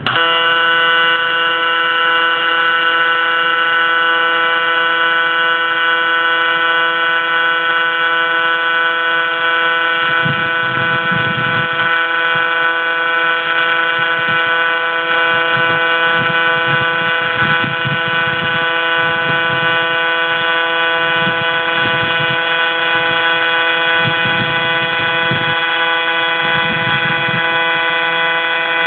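AC TIG welding arc on aluminium, a steady buzz at one fixed pitch that starts abruptly.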